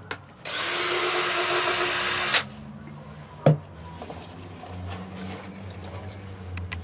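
Power drill running for about two seconds, drilling a small pilot hole for a light hook, followed by a single sharp knock about a second later.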